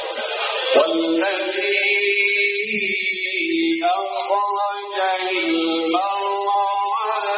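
A man's voice reciting the Quran in the melodic, chanted mujawwad style, holding long notes that slide from pitch to pitch.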